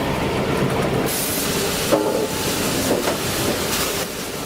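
Sawmill log-handling machinery running with a continuous rattling clatter and rumble, with louder knocks about two and three seconds in.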